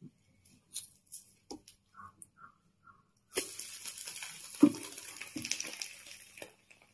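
Spatula scraping softly on the nonstick plate of an electric chapati maker. Then, about three seconds in, an egg omelette starts sizzling on the hot plate with a steady hiss. A knock comes partway through the hiss as the maker's metal lid is brought down over the omelette.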